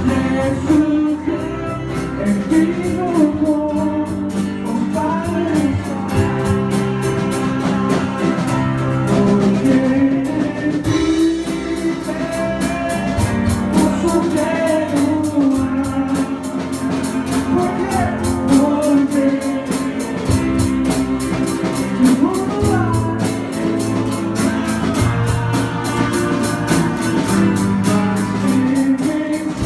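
Live worship band playing a song: acoustic and electric guitar, bass guitar, drum kit and keyboard, with a man singing lead at a microphone and voices singing along.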